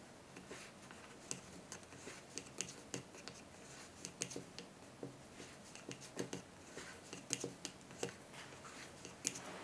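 Wooden knitting needles clicking lightly against each other as stitches are knitted in wool yarn, about two irregular soft clicks a second, with one sharper click near the end.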